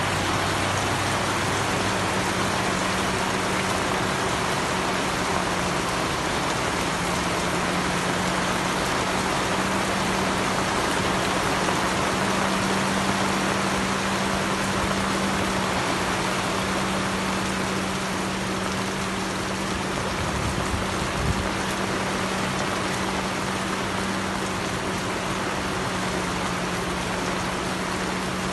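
Heavy rain falling steadily, a dense even hiss of rain on the boat and the water. Underneath runs a steady low mechanical hum that comes in about two seconds in.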